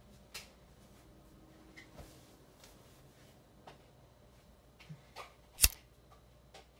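Small objects handled at a desk: scattered light knocks and clicks over a quiet room, with one sharp click about five and a half seconds in.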